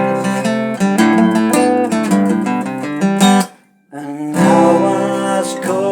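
Acoustic guitar strumming chords in an instrumental break of a folk sea song. About halfway through the music stops for half a second, then comes back with a wavering melody line over the chords.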